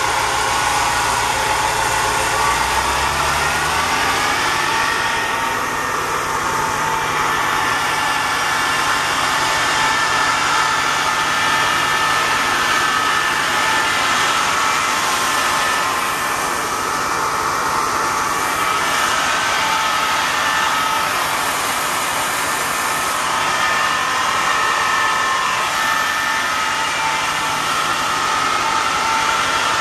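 The 1983 Chevrolet Kodiak C70 fire truck's 6.0-litre V8 gasoline engine running steadily. Its note shifts about three seconds in, then holds even.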